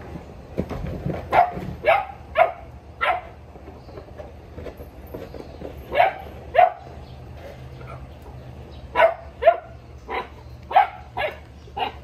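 Boerboel dogs barking at hens in short, sharp barks, about a dozen in three groups: four in the first three seconds, two around six seconds in, and six more from nine seconds to the end.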